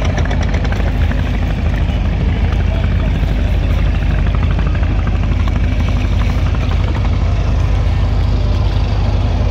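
Engine of a small wooden river boat running steadily: a loud, even low drone.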